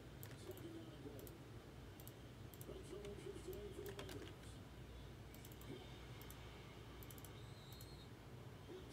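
Faint, scattered clicking of a computer keyboard and mouse as a spreadsheet list is sorted.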